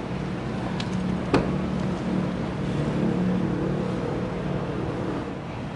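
The front door latch of a Mazda BT-50 pickup clicks twice, the second click sharper and louder, as the door is pulled open. A steady low engine-like rumble runs underneath.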